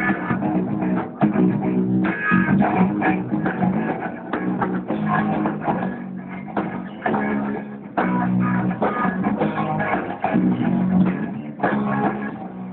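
Rock band of electric guitar, bass guitar and drums playing a heavy piece, the guitar and bass loudest.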